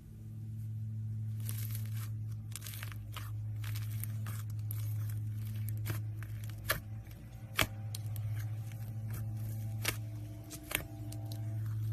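Slime being worked by hand, giving irregular tearing and crackling sounds and a few sharp clicks, over a steady low hum.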